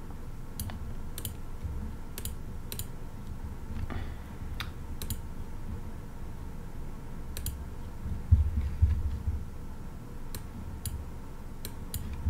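Scattered, irregular clicks of a computer mouse and keyboard, about a dozen in all. A couple of low thumps about eight seconds in are the loudest moment.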